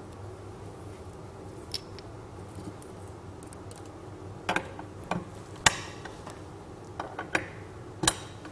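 Brass hose fittings on a heat-exchanger trainer's water hoses being unplugged and plugged back in: scattered metallic clicks and clacks over a low steady hum, the two sharpest in the second half.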